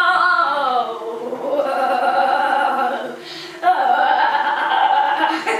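A girl's voice holding long wavering 'aah' vowels, broken twice, shaken by the vibration plate she is standing on at its fastest setting.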